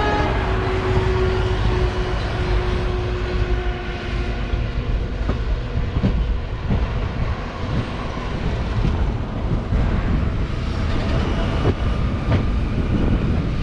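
Passenger train coach running along the track, heard by an open window: a steady rumble of wheels on rail mixed with rushing air, and a few light knocks of the wheels over the rail joints.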